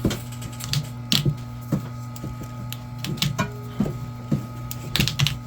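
Irregular clicks and crackles of a thick electrical cable's outer plastic sheath being peeled open by hand after being scored, over a steady low hum.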